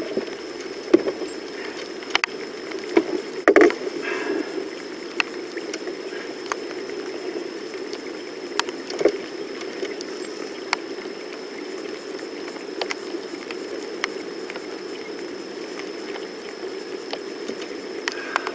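Scattered light taps and knocks from unhooking and handling a small flathead catfish in a boat, over a steady low rushing background. The louder knocks come in the first four seconds, with scattered ticks after.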